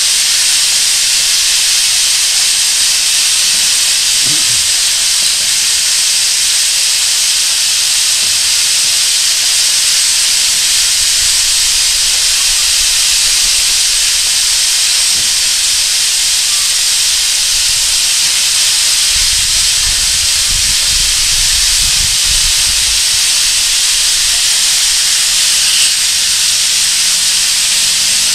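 Small steam tank locomotive standing with steam blowing off above it: a loud, steady hiss, typical of the safety valves lifting at full boiler pressure.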